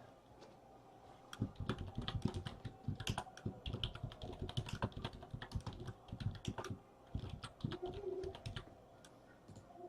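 Typing on a computer keyboard: a run of quick, irregular key clicks starting about a second in, with short pauses, stopping near the end.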